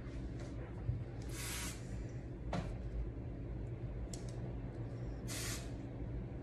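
Two short hissing sprays from a handheld spray bottle misting hair, each about half a second long and about four seconds apart.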